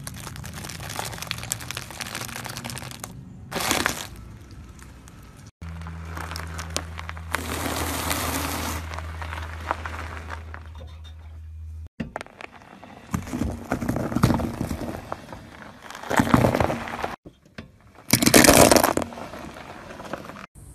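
A car tyre slowly rolling over and crushing piles of crunchy and soft things, among them floral foam with paintballs, cheese puffs and brittle white pieces. This gives a run of crackling and crunching with several loud crunches, the loudest about 18 seconds in. A car engine idles low beneath the crunching through the middle stretch.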